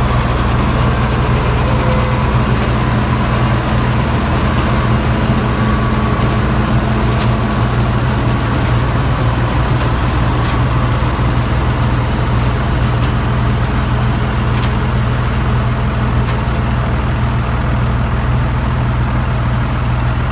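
Combine harvester running steadily while picking corn: a constant low engine hum under a broad mechanical hiss.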